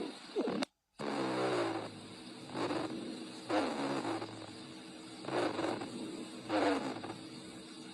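Recorded abnormal lung sounds: musical, pitched breath sounds (a continuous adventitious sound such as wheezing, rhonchi or stridor) with each breath, swelling and gliding down in pitch about every one to one and a half seconds. A short break just under a second in, where the recording is cut.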